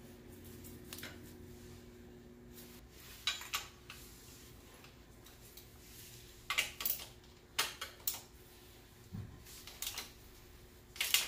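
Metal hand tools clinking against bolts and the steel engine guard as its bolts are tightened by hand: scattered sharp metallic clinks, several in quick pairs, the loudest near the end.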